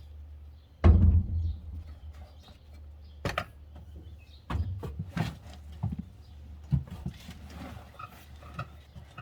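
A heavy thump about a second in as someone climbs into a Can-Am X3's seat, followed by scattered clicks and knocks of steering-wheel hub and quick-release parts being handled.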